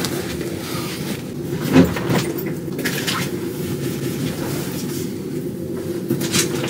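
Steady low mechanical hum of the room, with a few knocks and rustles as a woven beach bag is handled; the loudest knock comes about two seconds in.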